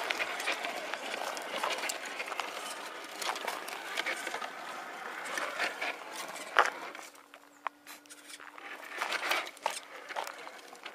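Scale RC crawler working through leaf litter and undergrowth: dry leaves and twigs crackle and snap under its tyres, over the whir of its electric motor and gearbox. The crackling briefly stops a little past the middle, then starts again.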